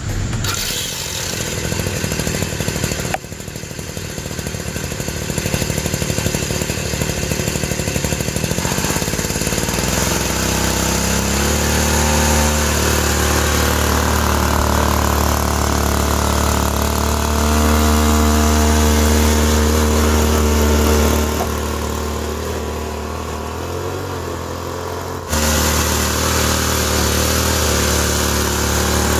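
Motors on a homemade radio-controlled Caterpillar 797 dump truck model running with a steady hum, the pitch stepping up and down as the speed changes, with a few abrupt cuts.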